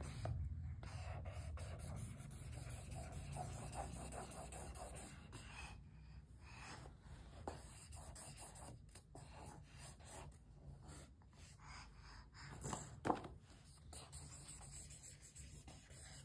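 Felt-tip sketch pen scribbling on paper: a scratchy rubbing of the nib going back and forth, with one sharp tap late on.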